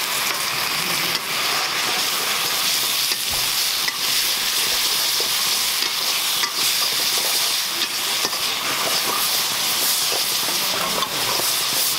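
Sauces and vegetables sizzling hard in a very hot wok, giving off a steady hiss as soy sauce, chilli sauces and vinegar hit the hot metal and steam. A metal ladle stirs and scrapes through the mix, with scattered clicks of the ladle against the pan.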